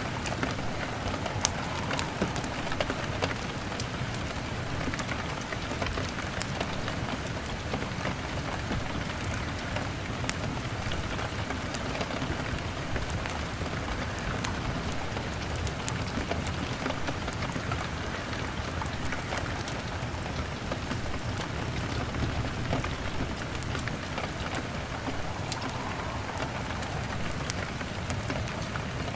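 Steady rain on a window pane, an even hiss, mixed with a crackling log fire whose sharp pops and clicks come scattered throughout.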